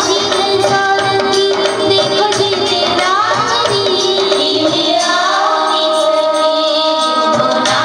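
Indian song with a singing voice carrying the melody over a steady drum beat.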